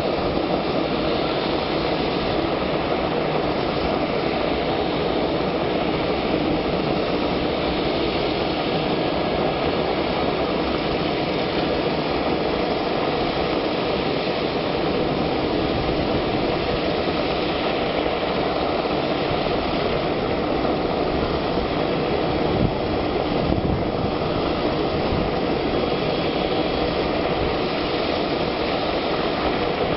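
Jet engines of a Boeing 737 freighter running steadily at idle, a broad rushing noise with a faint high whine over it. A single brief thump about three quarters of the way through.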